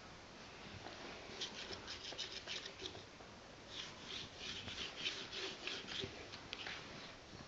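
Scratchy rubbing and rustling of a long-haired dog's coat close to the microphone, in two spells of quick strokes, each lasting a second or two.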